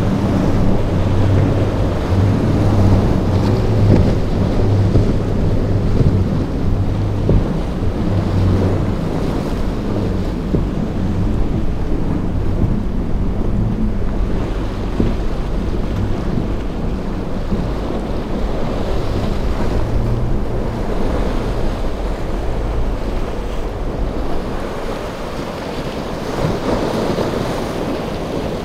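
Outboard engines of center-console boats running hard through rough inlet chop: a steady low drone that weakens near the end. Waves breaking and wind buffeting the microphone.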